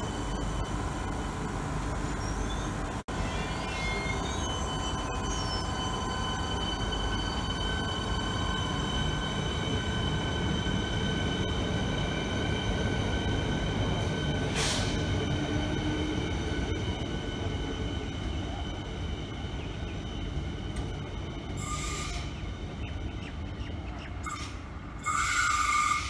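Siemens Nexas electric suburban train rolling past and away along a curve. Its wheels squeal steadily in several high ringing tones over the rumble of the cars, and the sound fades as it draws off. Short louder noises come near the end.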